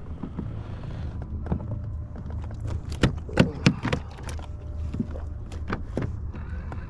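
A freshly landed tautog and fishing gear being handled on a plastic kayak deck: scattered knocks and taps, loudest about three to four seconds in, over a steady low rumble.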